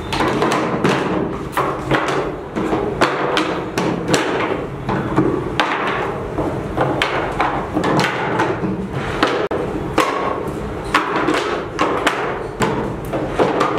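Small metal parts being handled and fitted on a work surface during a hands-on assembly task: an irregular run of sharp clicks, taps and knocks.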